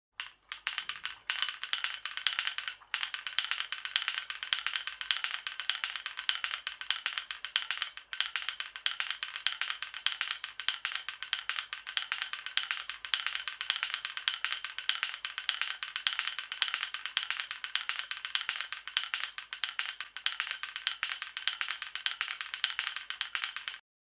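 Rapid, dry rattling percussion: a dense, even stream of many clicks a second that starts abruptly and cuts off sharply near the end.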